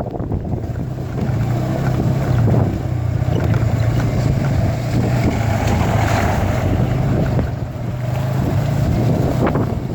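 TVS Apache RTR 180 motorcycle's single-cylinder engine running steadily under way, with wind buffeting the microphone.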